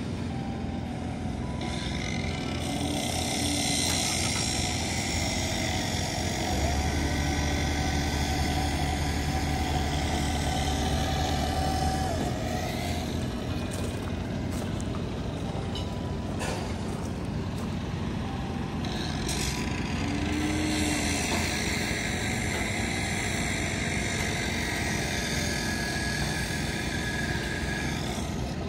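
A large engine running steadily, swelling twice in long spells with added higher-pitched hiss.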